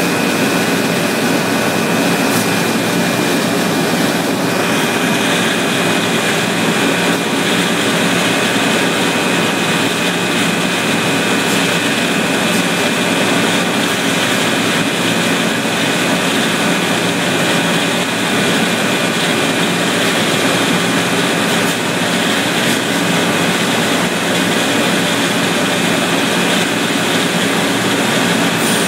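Steady drone of running factory machinery, with a few thin, steady whining tones over it and a slight rise in the hiss about four seconds in.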